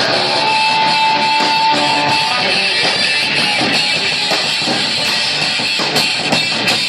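Heavy metal band playing: guitars, one lead note held for about the first two seconds, then a run of sharp drum and cymbal hits.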